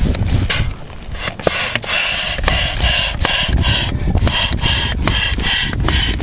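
Rhythmic rubbing, rasping strokes, about three a second, each with a faint squeak, over a steady low rumble.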